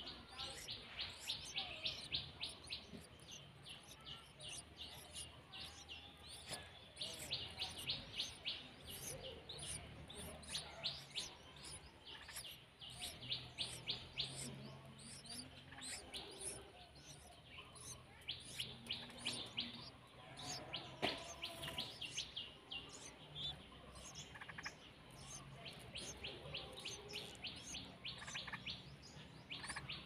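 Yellow-vented bulbul nestlings begging: bouts of rapid high-pitched chirps, several a second, as the parent feeds them at the nest.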